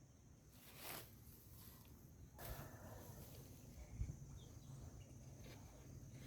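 Near silence with a few faint handling noises: a soft brushing sound about a second in, another starting around two and a half seconds, and a light low thump at about four seconds.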